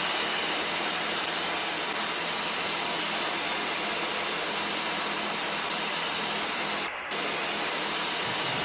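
Steady cockpit noise of a Czech Sport Aircraft SportCruiser (PS-28) in cruise flight: its Rotax 912 engine and the rushing airflow blend into an even hiss. The hiss dips briefly about seven seconds in.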